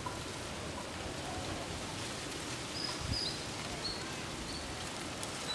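Steady outdoor wind noise, with a few short, high bird chirps from about three seconds in.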